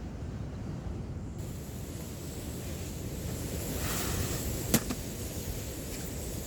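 Sea waves washing on a beach with wind buffeting the microphone, a wave's wash swelling about two-thirds of the way in. A single sharp click sounds just after the swell.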